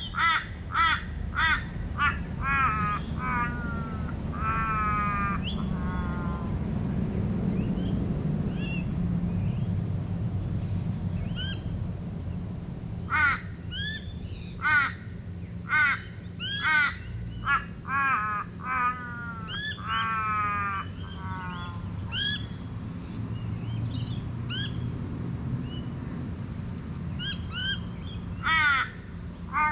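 A crow cawing in repeated runs of loud, short calls, some runs trailing off into quicker notes. The calls come at the start, again in the middle and near the end, over a steady low hum.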